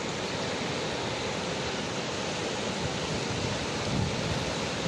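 Muddy floodwater rushing down a swollen river in standing waves: a steady, unbroken rushing noise.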